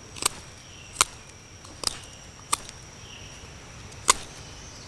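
Swiss Army knife blade whittling a green stick to a point: five sharp slicing clicks, roughly one a second, the last the loudest.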